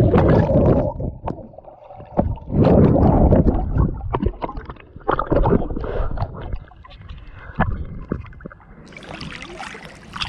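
Swimming-pool water sloshing and gurgling, heard muffled through a waterproof GoPro held underwater, in loud surges. The muffling lifts near the end as the camera comes back up out of the water.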